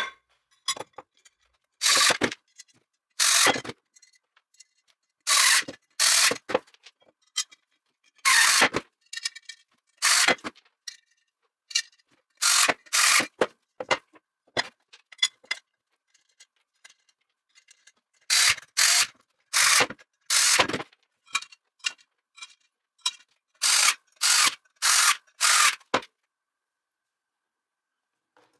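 Aluminium extrusion frame parts and their fasteners being handled and assembled by hand on a wooden table: a series of short, separate metallic scrapes and clicks with silent gaps between them.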